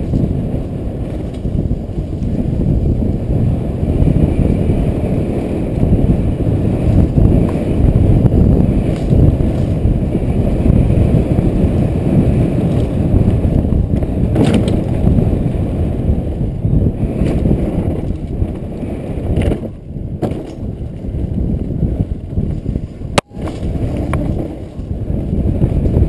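Mountain bike descending a dirt singletrack, heard from a helmet-mounted action camera: a steady, loud low rumble of wind on the microphone and tyres rolling over the trail, with scattered knocks and rattles from bumps. One sharp knock comes about 23 seconds in, followed by a brief dip in the noise.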